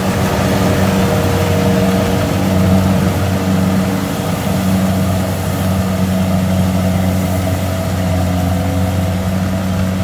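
Kubota DC-70 Plus rice combine harvester's diesel engine and threshing machinery running steadily while the machine harvests in a wet paddy.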